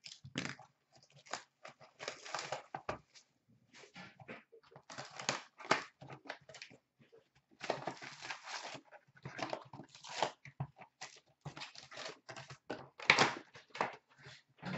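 Hands opening a cardboard hobby box of Upper Deck SP Authentic hockey cards and pulling out and stacking its foil card packs: irregular rustling, crinkling and scraping, with a louder scuff near the end.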